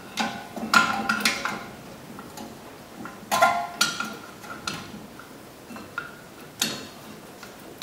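Metal clinks and taps with short ringing as a large C-clamp is fitted and worked on a disc brake caliper, the step that pushes the caliper piston back in for new pads. The clinks come in separate clusters: about a second in, around three and a half seconds, and once more near the end.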